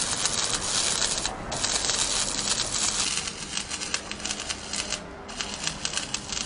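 Stick (covered-electrode) arc welding on steel profile tube: the arc gives a steady crackling sizzle that drops out briefly twice.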